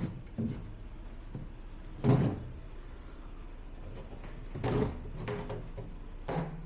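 Plywood shipping crate lid being handled: a few short wooden knocks and scrapes, the loudest about two seconds in, more near five seconds and one near the end.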